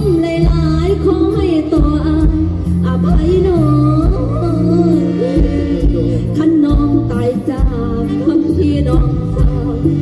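Mor lam singing: a voice sliding and wavering through an ornamented melody over a band's steady bass notes and drum beats.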